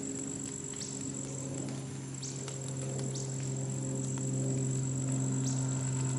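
Insects, crickets or similar, keep up a steady high-pitched trill, with a dozen or so short falling chirps scattered through it. A steady low hum runs underneath.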